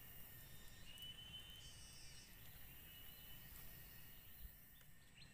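Near silence with faint, high, steady insect chirring that comes and goes, and a brief higher buzz about two seconds in.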